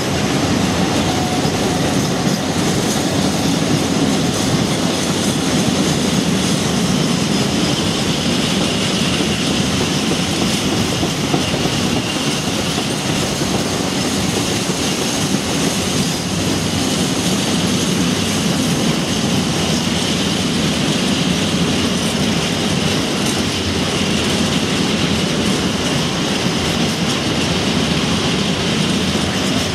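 Freight train's container flat wagons, many of them empty, rolling past: steel wheels running on the rails in a steady, unbroken noise.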